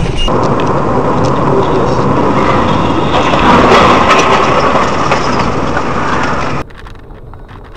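Loud, steady rushing road and wind noise of a moving car, picked up by a dashcam inside it. It cuts off suddenly about six and a half seconds in, leaving a much quieter background.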